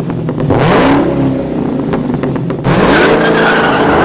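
A car engine revving, its pitch climbing twice, about half a second in and again near three seconds in, and each time holding at the higher speed.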